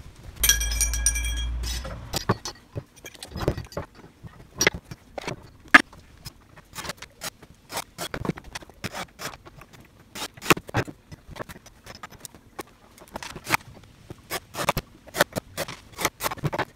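Cordless drill-driver whining for about a second and a half near the start, then a long run of sharp metallic clinks and knocks as aluminium leg tubes, steel brackets and screws are handled and fitted onto the wooden tabletop.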